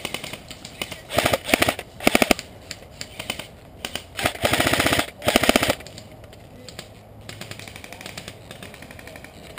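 Airsoft guns firing short bursts of rapid automatic fire, several bursts in the first six seconds, then only scattered quieter shots.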